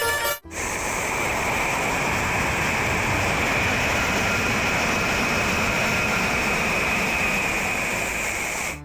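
Steady rushing noise with a faint, steady high whine in it. It starts abruptly about half a second in and cuts off near the end.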